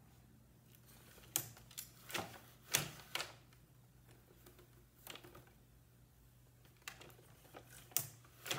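Louet Erica table loom clacking during plain weave: sharp wooden knocks as the shed is changed and the beater is brought against the cloth. They come irregularly in small clusters of two or three, the loudest about three seconds in.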